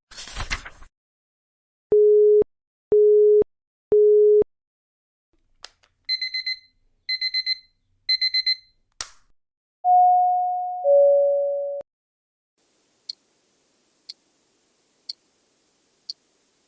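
A run of electronic sound effects. First three low, even beeps about a second apart, typical of countdown beeps. Then a digital alarm clock beeping in three quick bursts, a two-note falling error tone, and a watch ticking about once a second.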